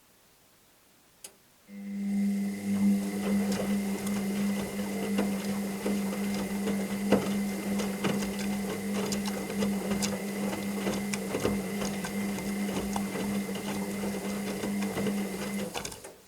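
Washing machine running a burst of its wash cycle: after a single click about a second in, the motor starts with a steady hum and a high whine while the drum turns, with many small clicks and rattles, and it stops just before the end.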